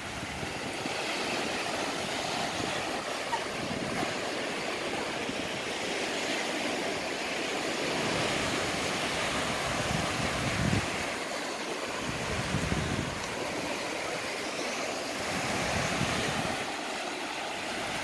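Low, gentle sea waves breaking and washing up onto a sandy beach: a steady wash of surf that swells and eases.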